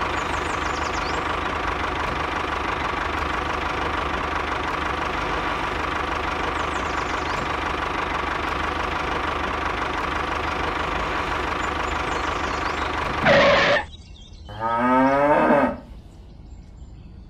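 An engine runs steadily for about thirteen seconds and then cuts off. A cow moos once near the end.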